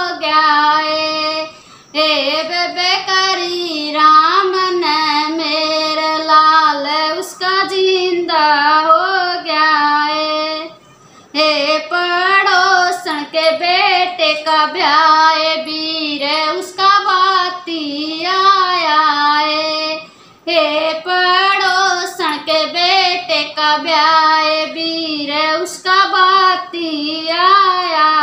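A woman singing a Haryanvi folk song solo and unaccompanied in a high voice, with brief breaks between lines.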